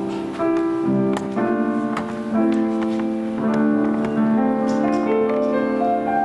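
Slow instrumental music on a piano or keyboard: held chords with a melody moving over them, its notes stepping upward near the end.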